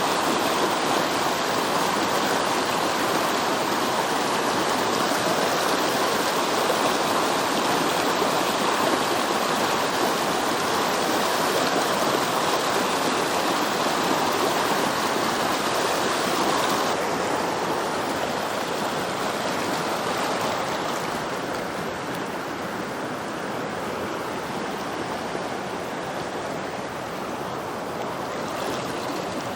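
Mountain stream rushing over rocks, a steady sound of running water that gets somewhat quieter a little past halfway through.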